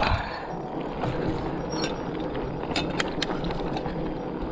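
Bicycle freewheel ticking in a few scattered clicks as the rider coasts, over a steady background rush.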